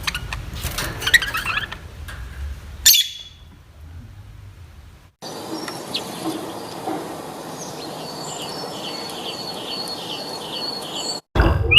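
Birds chirping over outdoor background noise, with abrupt changes where clips are cut together. In the second half there is a regular run of short high chirps, about two a second.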